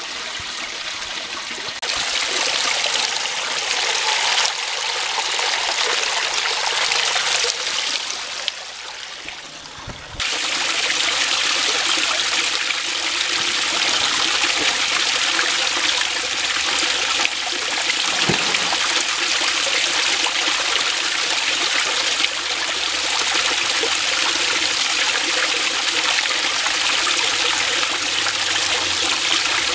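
Small creek waterfall splashing and trickling steadily into a shallow pool, louder from about ten seconds in.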